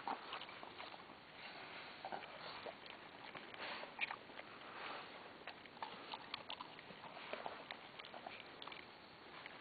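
A yellow Labrador-type dog sniffing and nosing through short grass, heard faintly, with scattered small ticks and rustles.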